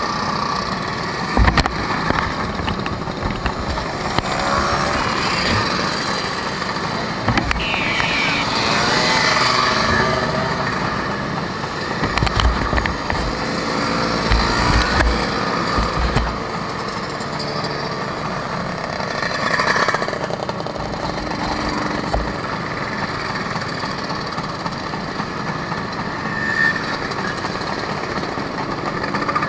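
A procession of Vespa scooters riding past one after another, their small engines overlapping and rising and falling in pitch as each machine goes by.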